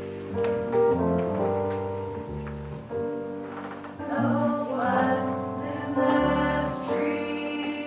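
Live choral music: held instrumental accompaniment chords, with the choir's voices coming in and singing about four seconds in.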